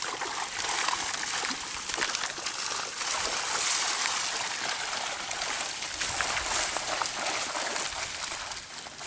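Many small fish leaping and thrashing at the water surface inside a net, a dense, steady patter of small splashes and falling droplets.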